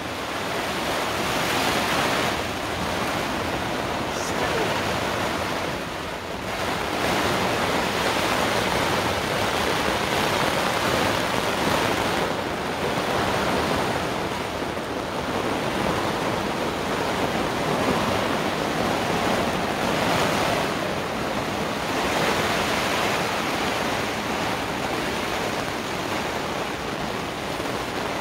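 Heavy rain falling on the canvas roof of a cotton bell tent, heard from inside as a dense, steady hiss that swells and eases every few seconds.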